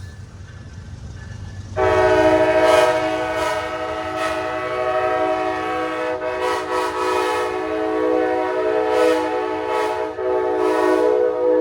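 Amtrak locomotive horn sounding one long, loud blast that starts suddenly about two seconds in and is held to the end, swelling and dipping slightly. Before it comes a low rumble.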